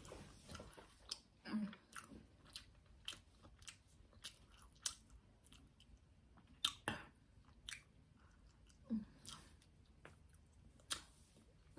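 A person chewing food close to the microphone: faint, irregular wet mouth clicks and smacks. A short low hum comes twice, near the start and about three-quarters of the way through.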